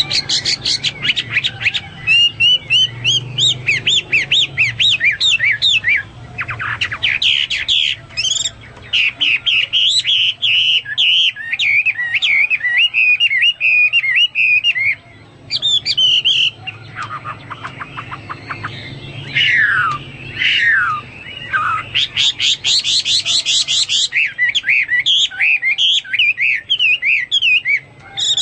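Chinese hwamei (melodious laughingthrush) singing a loud, varied song of fast repeated notes and rising and falling whistled phrases. A little past halfway come several long downward-sliding whistles, then a quick run of rapid notes.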